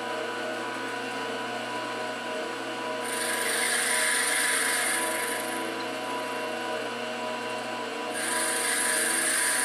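Milling machine running with a steady motor hum as an end mill cuts a flat on a cylindrical graphite EDM electrode. The cutting noise is a dry, hissy rasp that comes in twice, about three seconds in for a couple of seconds and again near the end.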